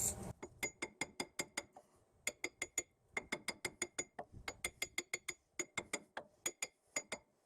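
Light hammer taps on a Ford Expedition's front wheel hub and bearing assembly: a run of sharp, ringing metallic clinks, about three or four a second with a couple of short pauses, vibrating the stuck hub loose.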